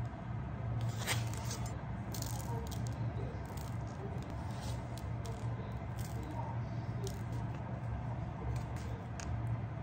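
Light kitchen handling sounds: scattered clicks and rustles as salt is sprinkled over sawara fillets in a plastic tray and the fillets are patted with paper towel. A steady low hum runs underneath.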